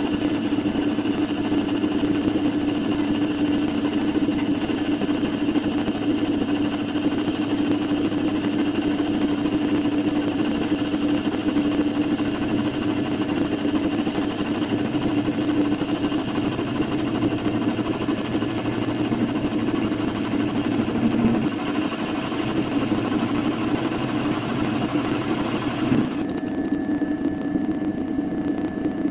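Metal lathe running at constant speed while turning a large steel cylinder, with a steady hum and whine. About 26 seconds in, the hissing upper part of the sound drops away and a thin higher whine remains, as if the tool has come off the cut.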